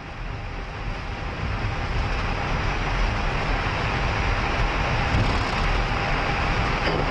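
Airbus A320 engine and rolling noise heard from inside the cockpit as the jet moves on the ground after takeoff clearance. It is a steady rush that builds over the first two seconds and then holds, with a faint steady whine above it.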